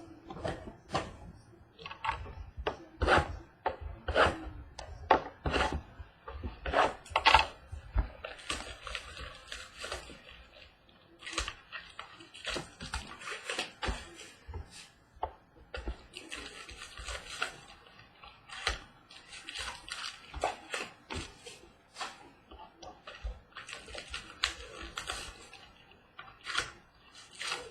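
A sealed box of trading cards being opened by hand: plastic wrap crinkling and tearing, with irregular taps and clicks of cardboard being handled. Longer stretches of crinkling come about eleven, sixteen and twenty-four seconds in.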